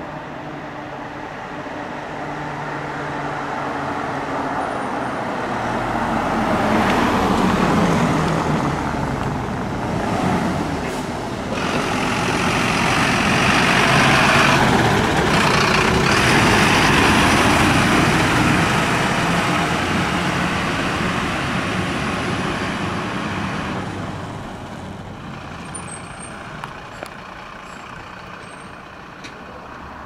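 Fire trucks driving past: engine and tyre noise that builds as they approach, is loudest as they go by around the middle, and then fades away.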